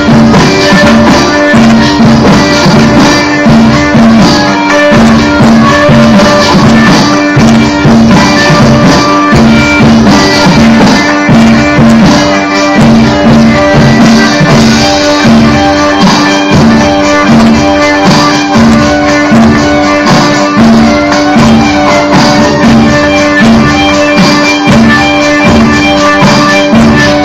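Loud belly dance music with a steady drum rhythm, a held drone and jingling percussion.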